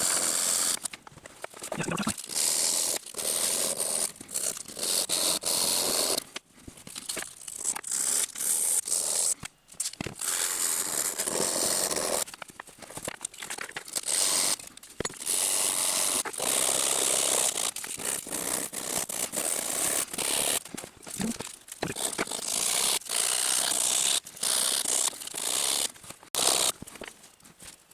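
Steel pliers being worked by hand with an abrasive to take out grinding marks: repeated rasping strokes in runs, broken by short pauses.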